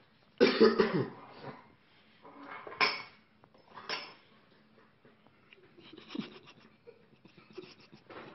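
Kitchen handling noises while oil is spooned over a steel bowl of flour: a short voice sound about half a second in, then two sharp clicks about a second apart, and faint clatter after.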